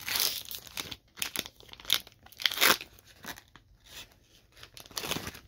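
Foil wrapper of a Pokémon trading card booster pack being torn open and crinkled, in several short rustling bursts, the loudest about two and a half seconds in.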